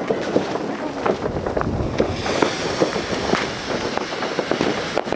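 Many distant fireworks and firecrackers going off at once: a continuous dense crackle of pops with no single loud bang standing out.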